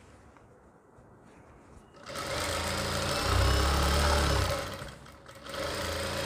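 JACK industrial sewing machine stitching through gown fabric. It starts about two seconds in, stops briefly near five seconds, then runs again.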